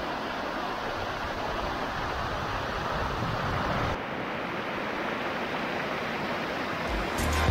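Steady rush of stream water pouring over rock slabs and small cascades. The sound turns a little duller about four seconds in.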